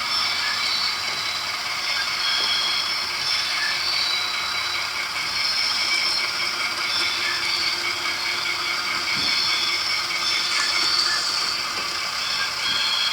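Model railway diesel switchers running on the layout: a steady mechanical whir and gear rattle with a fast run of small ticks, thin and without any deep engine rumble.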